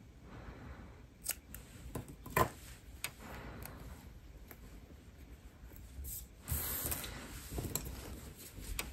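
Small scissors snipping a yarn end: a few sharp clicks in the first three seconds, one of them much louder than the rest. This is followed by soft rustling as hands handle a crocheted bouclé-yarn hat.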